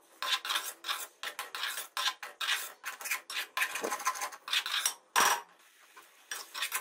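Metal spoon stirring and scraping a wet yogurt masala around a metal karahi in quick repeated strokes, pausing briefly about five and a half seconds in.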